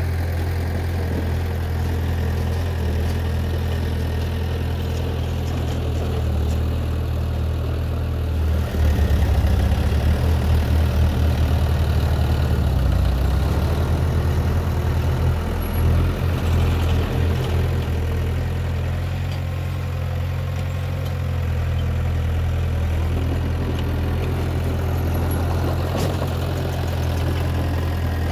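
Heavy diesel construction-machine engine running steadily at idle, then louder with a throbbing beat from about nine seconds in until about sixteen seconds, when it settles back to idle.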